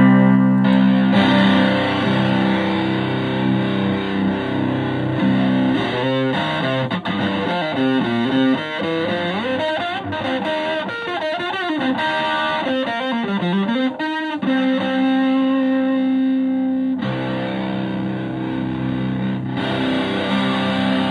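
Stratocaster electric guitar played through a Fuzzaround, a Buzzaround-style fuzz pedal, into a Fender Twin Reverb–style amp: thick, distorted held chords, then a middle stretch of notes bending and wavering up and down in pitch, then held chords again.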